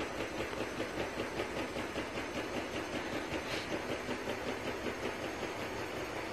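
Bosch front-loading washing machine running, its drum turning with a steady hum and an even pulse about three times a second.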